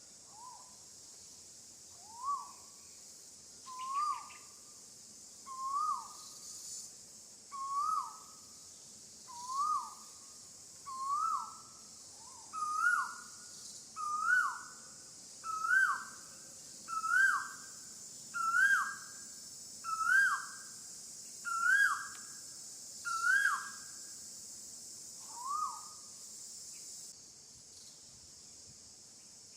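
A bird calling over and over, about fifteen short notes each sweeping up then dropping, every second and a half or so, creeping higher in pitch through the series and ending a few seconds before the end. A steady high insect buzz runs behind it and cuts off near the end.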